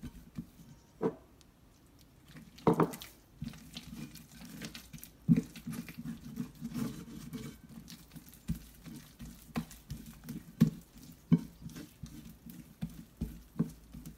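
A hand mixing and kneading sticky sfenj dough in a ceramic plate: irregular soft slaps and squelches, with a few sharper knocks of hand against the plate.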